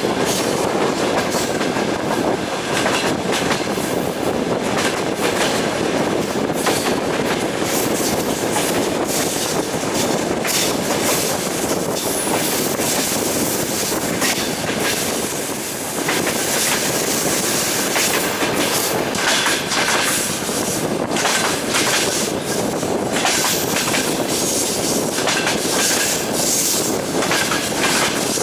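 Moving passenger train heard from inside the carriage: steady rumble of the running gear with the rhythmic clickety-clack of the wheels over rail joints. A thin wheel squeal comes in now and then in the second half.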